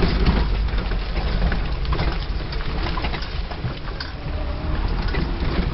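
Engine and road noise inside the cabin of an off-road vehicle driving along a rough dirt track, a steady low rumble with many small knocks and rattles from the body.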